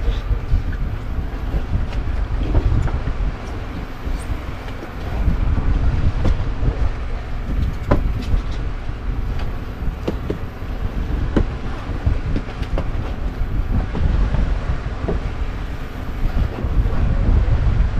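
Rumble and wind buffeting on the microphone aboard a wooden outrigger fishing boat, with scattered knocks and clatter from gear handled on deck.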